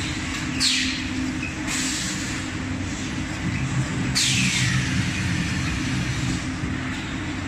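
Automatic motorcycle tyre building machine running through its cycle: a steady mechanical hum broken by three hisses like compressed air, about half a second in, near two seconds, and just past four seconds, the last one falling in pitch.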